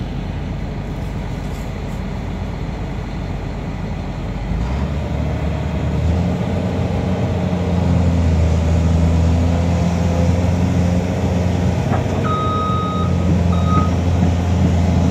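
Diesel engine of heavy demolition machinery running, revving up about five seconds in and holding at higher power. A backup alarm beeps twice near the end.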